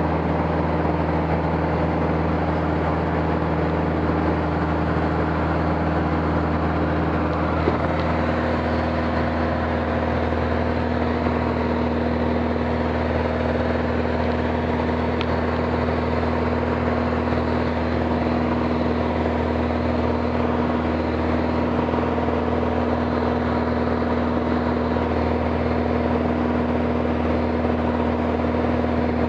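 Steady drone of an aircraft's engine heard from on board, a constant hum of several low tones over a rushing noise. About eight seconds in, one of the tones shifts slightly lower in pitch and holds there.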